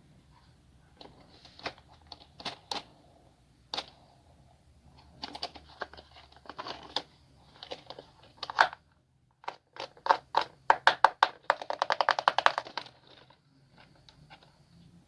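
Packaging being handled during an unboxing: scattered clicks, taps and crinkles of plastic and cardboard. Near the end comes a quick rattle of clicks lasting about a second.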